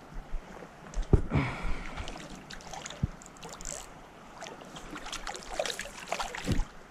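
Water splashing as a small hooked trout thrashes at the surface while being played in, with a few sudden knocks and splashes.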